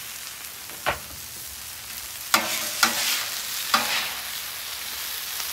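Sliced peppers and onions sizzling on a Camp Chef flat top griddle as a metal spatula stirs and scrapes them across the hot steel. There is a single knock about a second in, and three sharp scrapes of the spatula between two and four seconds in.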